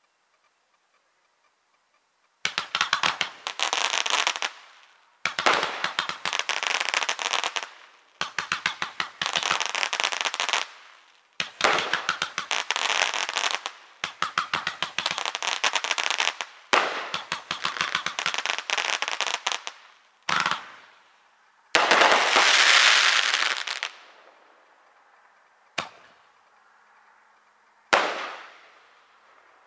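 Fireworks going off. After about two seconds of near silence come six runs of dense, rapid crackling, each two to three seconds long, one after another. Then a short pop, a louder crackling burst that fades away, and two single sharp bangs near the end.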